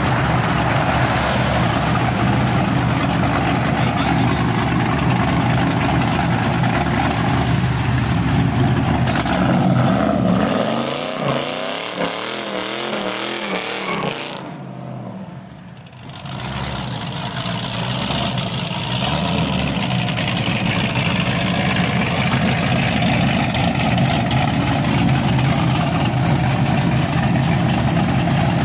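Car engines revving hard and accelerating away, their pitch sweeping down as they fade about halfway through. Then a car engine idling loudly close by.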